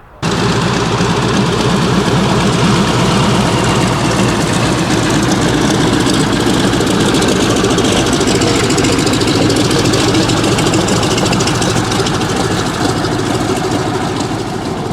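Large piston aircraft engine running steadily at close range, loud, cutting in suddenly at the start.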